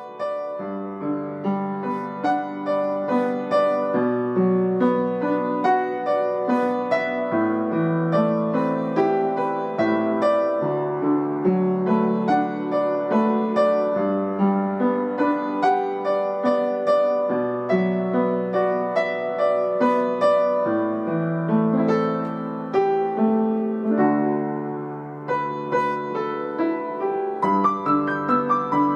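Background piano music: a gentle, flowing melody of many quick notes over a low note that changes every couple of seconds.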